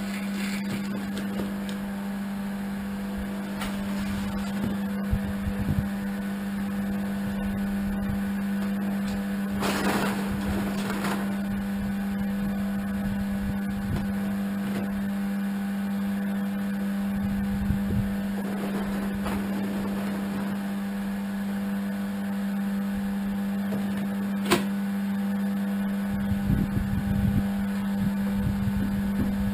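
An electric motor hums steadily at one constant pitch, with a brief clatter about ten seconds in and a sharp click near the end.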